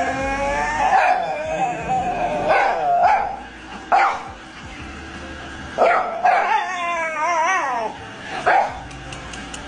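A dog vocalizing: long, wavering whines in the first few seconds, then short yips and a warbling, up-and-down whine-howl near the end.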